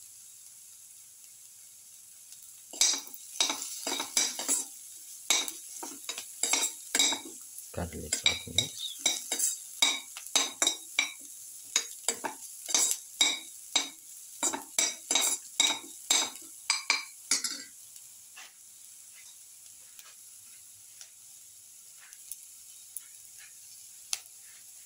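Onion slices sizzling in ghee in a pan while a metal perforated skimmer spoon stirs and scrapes them. The scrapes come about twice a second, starting about three seconds in and stopping a few seconds past the middle, after which only the faint sizzle remains.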